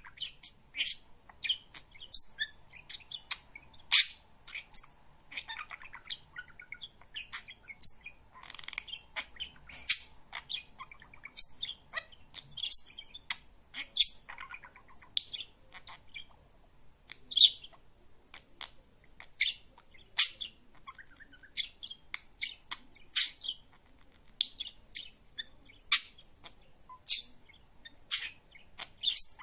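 Pet budgerigar chirping and chattering: a long, irregular run of short, sharp high chirps about once a second, with softer warbling between.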